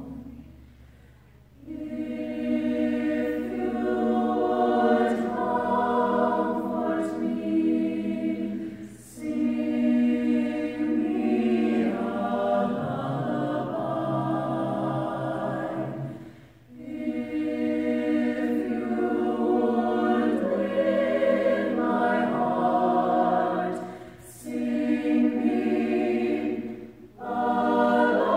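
Mixed choir singing a cappella in slow, long-held phrases, with short breaks between phrases.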